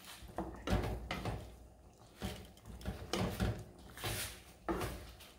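A spatula stirring thick, bubbling tomato sauce in a nonstick frying pan, knocking against the pan irregularly, about half a dozen times.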